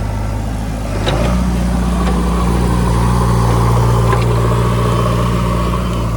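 Heavy diesel engine running steadily, its level rising about a second in and then holding. A few faint clicks sound over it.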